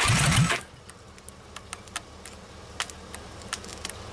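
A short loud burst, then scattered, irregular sharp clicks and taps. There is no steady running or cranking sound: the engine is not turning over.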